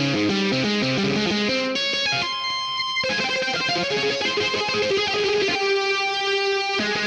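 Electric guitar sound from GarageBand's Hard Rock smart guitar on an iPad, played note by note in a Japanese scale through drive and flanger pedal effects. Quick runs of single notes, broken by held notes about two seconds in and again near the end.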